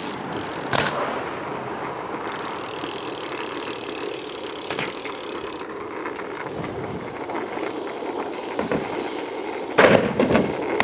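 BMX bikes rolling on asphalt, with steady tyre and wind noise whose hiss shifts abruptly a few times. A sharp knock comes about a second in, and a loud clattering impact near the end.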